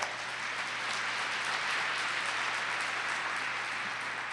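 Audience applauding, a dense steady clapping that starts to die down near the end.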